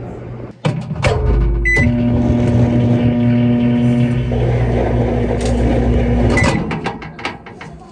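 Microwave oven running with a steady electrical hum, heard from inside the oven cavity where the recording phone sits. A few clicks and a knock and a keypad beep come as it starts. It shuts off with another short beep about six and a half seconds in.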